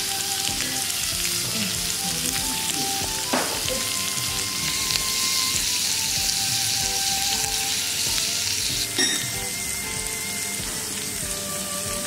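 Beef slices sizzling on a hot ridged griddle plate, a steady frying hiss with two sharper crackles, one about three seconds in and one about nine seconds in.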